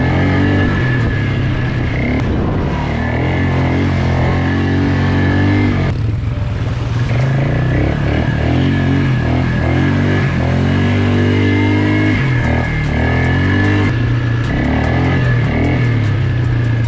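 Polaris Magnum 325 ATV's single-cylinder four-stroke engine running, its pitch rising and falling as the throttle changes, under background music.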